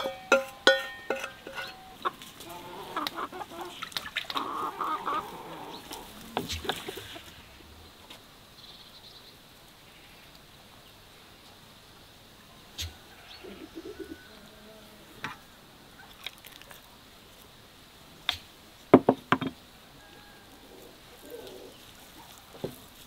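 An enamel bowl knocked several times against an enamel platter in the first second, each knock ringing briefly, then hens clucking for a few seconds. Later come a few scattered clicks and taps as the ground walnut filling is mixed by hand and with a wooden spoon.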